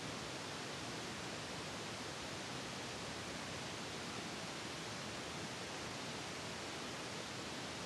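Steady, even hiss like static, with no distinct sounds in it.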